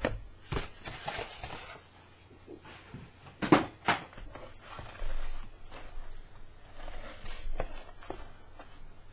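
Small cardboard box handled and moved about on a desk: scraping and shuffling of cardboard, with two sharp knocks a little over three seconds in as the box is set down.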